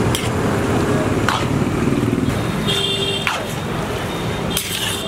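A metal spatula stirring and scraping a thick chicken filling around a large iron kadai, with scrapes against the pan a few times, over steady street traffic noise. A brief high tone sounds about halfway through.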